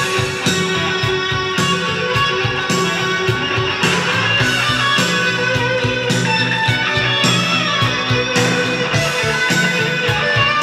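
Rock music with guitar, played from a vinyl record through a pair of Meadowlark Blue Heron 2 floor-standing hi-fi speakers and heard in the room, as a listening test of the repaired speakers.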